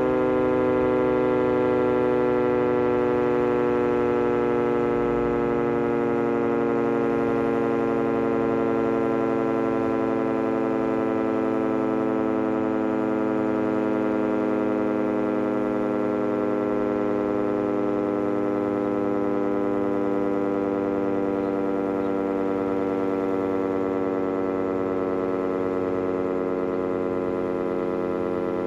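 Klaxon GP8 siren sounding in its scheduled monthly test: a steady, loud wail made of many layered tones. Its pitch sinks slowly and its level eases off slightly over the half-minute.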